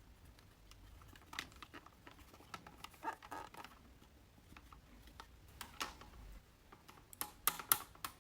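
Hands handling toy packaging: scattered taps, clicks and crinkles, with a quick cluster of sharp clicks near the end.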